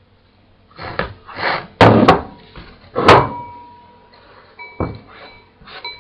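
Kitchenware knocking and clattering: a handful of sudden thuds and clanks, the loudest about two and three seconds in, with a lighter knock near the end.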